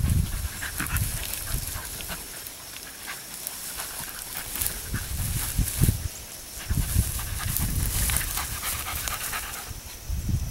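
Beagle panting while working through tall grass, with the brush crackling around it and a few low rumbles.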